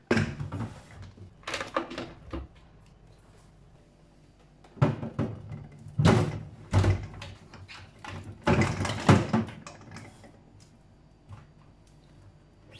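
Plastic kitchen appliances, a vegetable chopper and a mixer grinder, being set down and pushed into place on a microwave's top: several clusters of knocks and clunks, the loudest near the end.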